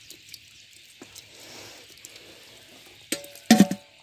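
A faint steady hiss with a few small ticks, then a sharp knock about three seconds in and two louder knocks right after it, each leaving a short ringing tone like struck metal.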